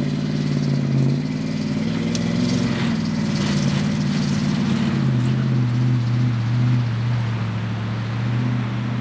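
A motor vehicle's engine running steadily. Its pitch steps up about a second in and settles back down about halfway through.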